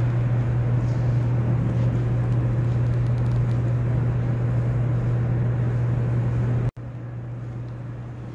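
Steady low hum with a noisy background rumble. It cuts out for an instant near the end and comes back quieter.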